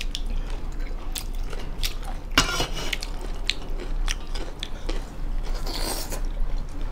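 Close mouth sounds of people eating rice and local chicken by hand: chewing and lip-smacking with scattered sharp clicks, and a louder rough noise about two and a half seconds in.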